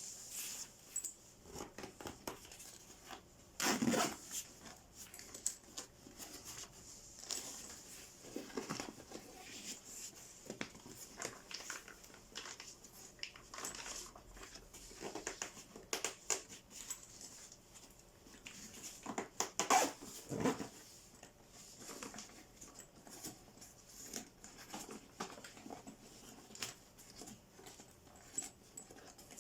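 Soft insulated cooler bag being handled: its fabric and lining rustling and crinkling, with scattered light taps and clicks. Louder rubbing swells come about four seconds in and again around twenty seconds.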